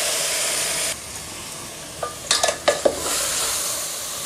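Chopped tomatoes sizzling in hot oil in a metal pot as they are stirred in. The sizzle drops suddenly about a second in. A few sharp scrapes and clinks of a metal spoon against the pot come between two and three seconds in, then the sizzle picks up again.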